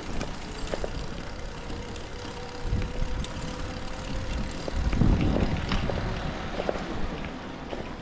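Outdoor street ambience while walking: a faint steady hum fades out about halfway through, and a low rumble swells twice, briefly about three seconds in and more strongly around five to six seconds, with scattered light clicks.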